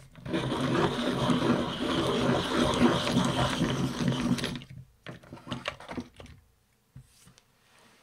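Swordfish IKON electric pencil sharpener running for about four seconds as a coloured pencil is sharpened in it, followed by a few light clicks and taps as the pencil is handled.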